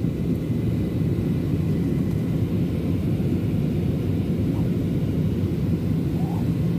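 Steady low rumble of engine and airflow noise inside an airliner's cabin in flight.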